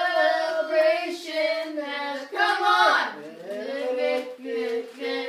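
A young voice singing a few long held notes, with a brief rise and fall in pitch in the middle.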